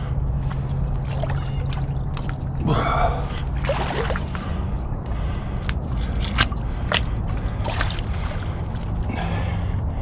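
Boots squelching through wet mud, with a man's heavy breathing and a few sharp clicks and snaps.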